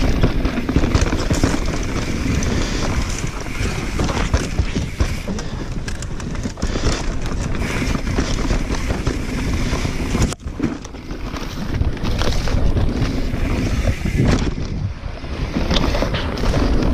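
Mountain bike descending a rough dirt trail at speed: wind buffeting the action camera's microphone over the tyres on loose dirt, with the bike rattling and knocking over bumps. The noise dips briefly about ten seconds in.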